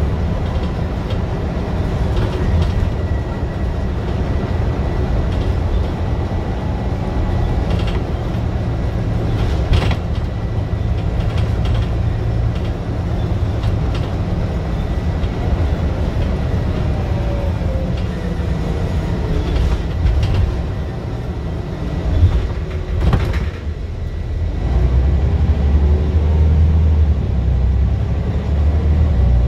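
Scania single-deck bus engine and drivetrain driven hard, heard from inside the rear of the saloon: a loud, heavy low drone with body rattles. Sharp knocks come about ten seconds in and again about 23 seconds in, and the engine note swells louder under power near the end.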